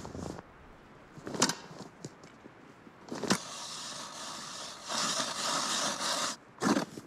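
Crunching and scraping on snow over lake ice, with two sharp knocks, then a steady scraping hiss that grows louder for about a second and a half before stopping.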